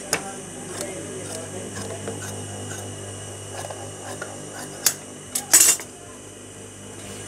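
Large tailor's shears cutting through a strip of fabric on a sewing table, with light handling clicks, a sharp click a little past halfway and then a short, louder noisy snip, over a steady low hum.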